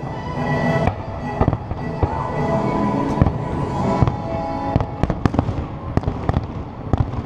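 Aerial fireworks shells bursting: a few sharp bangs at first, then a quick run of them in the second half, over music that fades under the bangs.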